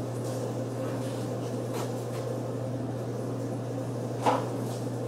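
Steady low hum in a workshop, with a single brief knock about four seconds in.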